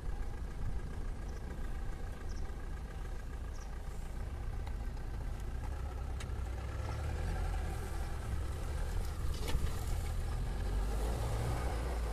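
Mahindra Thar CRDe's diesel engine running as the Thar reverses up a grassy bank. The low engine rumble grows louder from about seven seconds in as it takes the climb, with a few short knocks along the way.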